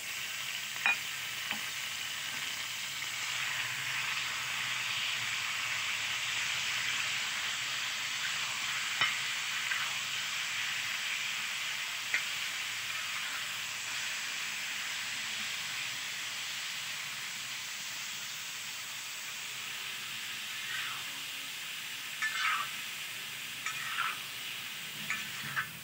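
Yogurt-marinated chicken pieces sizzling steadily in hot oil while a metal spatula stirs them. A few sharp taps of the spatula against the pan, and a cluster of taps and scrapes near the end.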